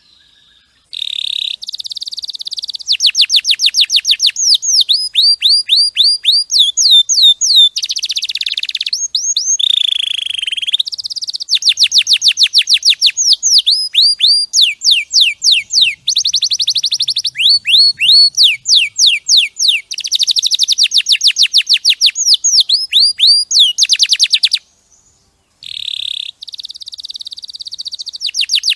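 Domestic canary singing a long, loud song of fast trills: rapid runs of repeated high, down-sweeping notes that change speed from phrase to phrase, with short pauses near the start and about three-quarters of the way through.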